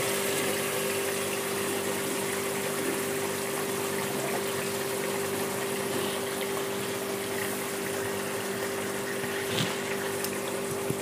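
Egg curry gravy simmering uncovered in a kadai: a steady bubbling hiss over a constant low hum, with a faint click near the end.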